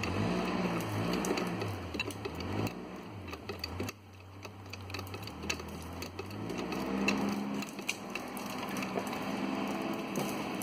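Hydraulic bottle jack being hand-pumped in the back cut of a felled-to-be white oak, lifting the tree, with scattered sharp cracks and pops of the wood as it starts to give. A low engine-like hum that rises and dips repeatedly runs underneath.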